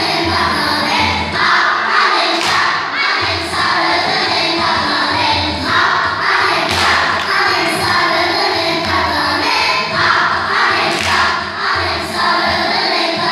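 A group of young children singing together over a recorded backing track with a steady beat and occasional cymbal crashes, played loud through a PA loudspeaker.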